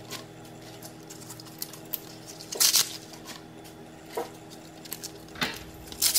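Kale leaves being handled and stripped off their stems by hand: crisp rustling and small crackles, with about four louder rips, over a steady low hum.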